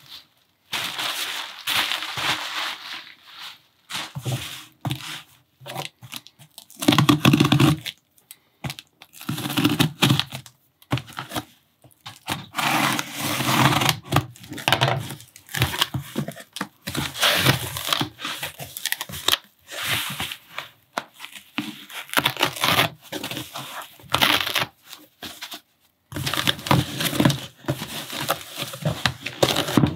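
Packing tape being peeled and ripped off a cardboard box in a series of scratchy tearing strokes with short pauses between them, then the box's cardboard flaps handled and pulled open.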